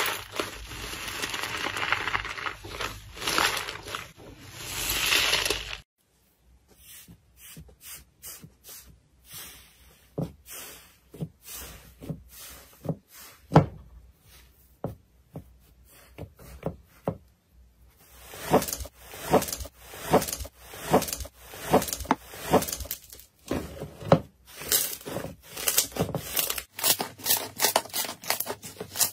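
Slime being worked by hand: about six seconds of continuous wet squishing and fizzing as foamy slime is squeezed in a tub, then, after a sudden cut, a run of separate pops and clicks as puffy, air-filled slime is pressed and its air pockets burst. Near the end the pops come thicker and faster as a thick slime is stretched and pulled apart.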